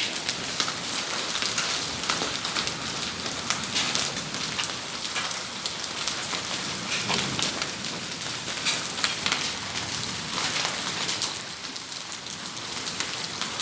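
Heavy rain falling steadily, a dense hiss studded with the ticks of individual drops striking hard surfaces.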